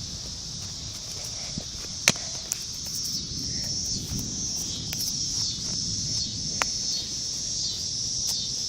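Steady high-pitched insect chorus, like crickets, with a few sharp clicks, the loudest about two seconds in, and a low rumble at the start.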